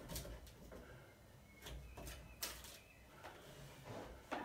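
Faint, scattered knocks and clicks, the sharpest about two and a half seconds in and another at the very end.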